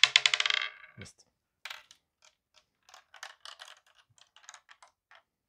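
A small plastic ball falls out of a LEGO brick tilting maze and bounces on a hard board in a quick run of clicks that dies away within about a second. After that, light irregular plastic clicks as the maze is handled and tilted.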